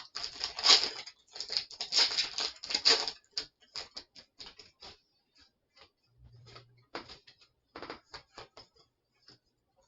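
Foil wrapper of a Pokémon card booster pack crinkling as it is opened, for about three seconds. Then scattered light clicks and two short crinkles as the cards and wrapper are handled.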